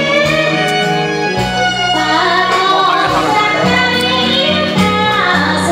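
Music: a song with a woman singing over instruments and a bass line.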